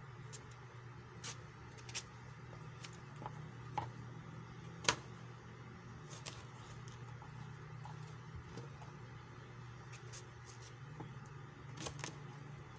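Kitchen knife slicing eggplant on a plastic cutting board: irregular clicks and taps of the blade against the board, the sharpest about five seconds in, over a steady low hum.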